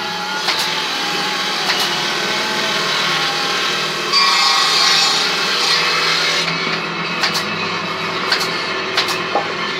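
Woodworking in a furniture workshop: a power tool works the wood with a steady running hum. A louder hissing burst of cutting or abrading starts about four seconds in and lasts about two seconds. Scattered sharp knocks of wood on wood come through.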